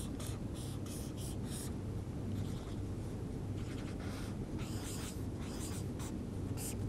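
Marker pen drawing on flip-chart paper: a run of short scratchy strokes, over a steady low hum.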